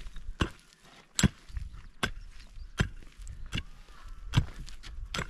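A hand tool striking something hard again and again in an even rhythm: seven sharp blows, about one every 0.8 seconds, the second the loudest.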